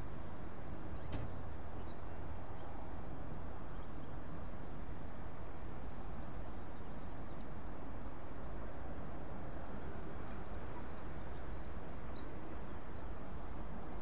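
Steady distant rumble of a taxiing Boeing 777-200's jet engines at low power, with faint bird chirps scattered over it.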